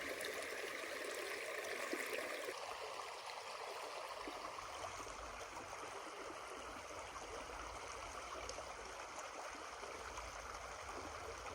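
Creek water flowing steadily over rocks, an even rushing and trickling.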